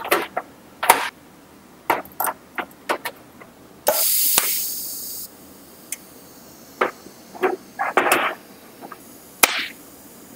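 Sheet-steel plates and magnetic welding squares clicking and knocking against a metal welding table during fit-up for TIG tack welding. About four seconds in there is one loud hiss lasting about a second and a half.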